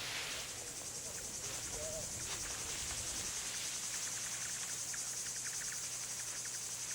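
Insects chirping in a steady chorus: a high, rapidly pulsing trill that holds even throughout.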